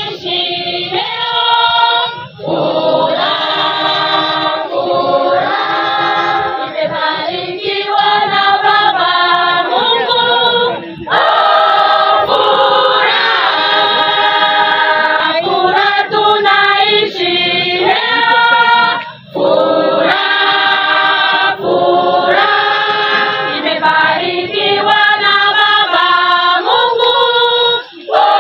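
A women's choir singing together, the sung phrases broken by short breaks about every eight to nine seconds.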